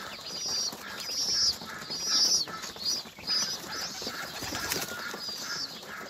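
A steady run of short, high-pitched bird chirps, about two a second, over faint pecking and wing rustle from a flock of domestic pigeons feeding on grain.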